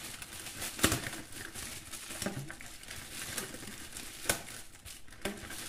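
Thin plastic food bag crinkling and rustling as hands twist and tie it shut around marinated chicken drumsticks, with sharp crackles about a second in and twice near the end.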